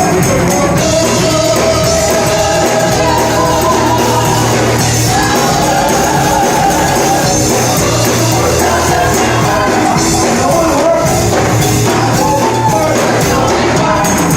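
Live gospel worship music: voices singing a melody over a band, with a tambourine.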